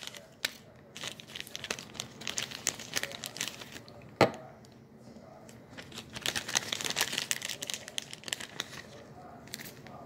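Rustling, crinkling handling noise with many small irregular clicks and one sharp knock about four seconds in.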